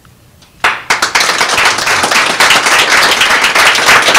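Audience applauding with dense, loud clapping. It starts after a brief hush about half a second in and keeps going.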